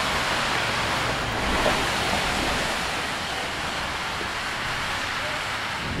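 Steady rushing wind noise, even throughout with no distinct events.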